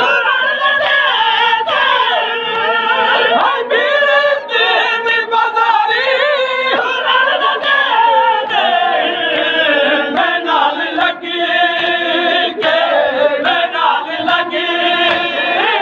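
A group of men chanting a Muharram noha (Shia lamentation) together in a loud unison chorus, with short sharp hits cutting through now and then.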